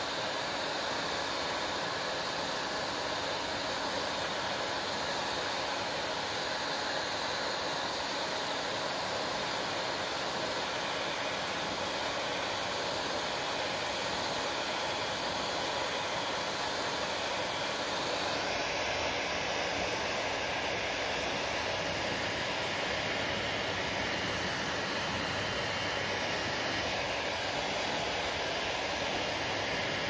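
Handheld hair dryer running steadily on wet hair, a constant rushing blow of air. Its tone shifts slightly a little past halfway through.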